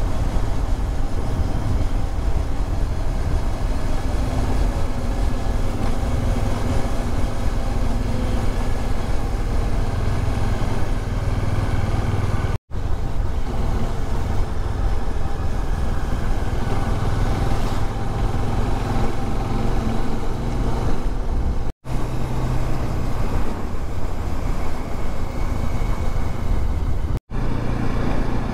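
Bajaj Dominar 400's single-cylinder engine running as the bike is ridden, a steady low rumble with road noise. It cuts out to silence very briefly three times.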